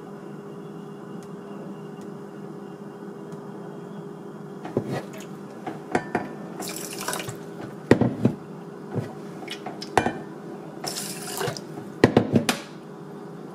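Water poured from a plastic cup into a rice cooker's inner pot of rice, in two short pours a few seconds apart. Knocks and clatters of the cup against the pot come with the pours, over a steady low hum.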